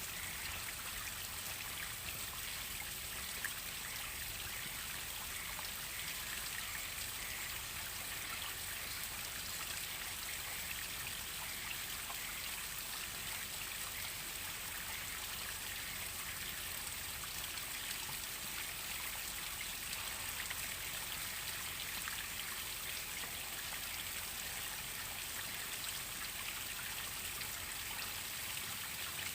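Waterfall: falling water splashing in a steady, even hiss, strongest in the high range, without change.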